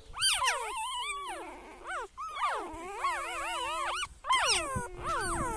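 A pet animal giving a run of drawn-out, wavering cries that rise and fall in pitch, about eight in all, over a steady held lower tone.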